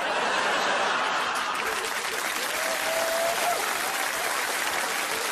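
Audience applauding, steady, dense clapping throughout.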